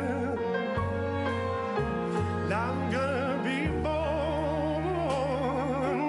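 Slow music: a voice sings with wide vibrato over long, held bass notes that change every second or so.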